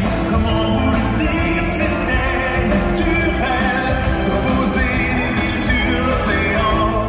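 Loud show music with a singing voice, continuous throughout.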